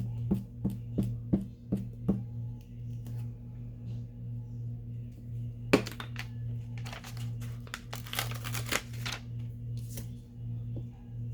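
Paper being handled while gluing journal pockets: a quick run of light taps, about three a second, in the first two seconds, then a sharp tap and a stretch of paper rustling past the middle, over a steady low hum.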